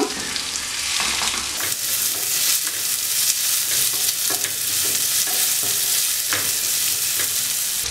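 Chopped guava frying in hot oil in a pan, sizzling steadily while a wooden spatula stirs and scrapes through the pieces with light knocks against the pan. The sizzle grows fuller about a second and a half in as the pieces are turned.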